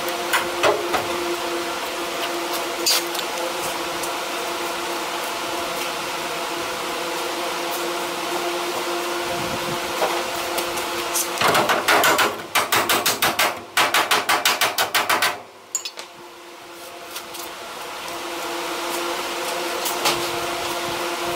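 A quick run of about a dozen hammer blows on sheet metal, roughly four a second, starting a little past the middle, over a steady shop hum. After the last blow the hum drops out and slowly swells back.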